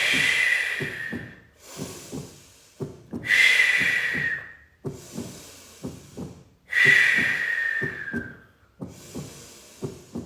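Forceful breathing in through the nose and out through the mouth, close to the microphone: a loud rushing breath about every three seconds, three times. A quick, soft knocking beat runs underneath.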